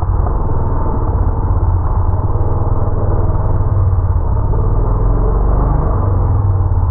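Hero XPulse 200 motorcycle's single-cylinder engine running at a fairly steady throttle while being ridden, a deep pulsing exhaust note that sounds muffled, with little treble.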